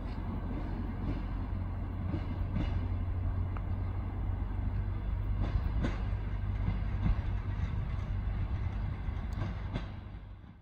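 A DR1A-series diesel multiple unit pulling away: a steady low diesel rumble with irregular sharp clicks of wheels over the rail joints, fading out near the end.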